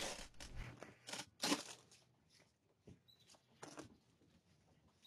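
Bears moving about at a front door, heard through a doorbell camera's microphone: a series of short rustling, scraping noises, the loudest in the first second and a half and fainter ones after.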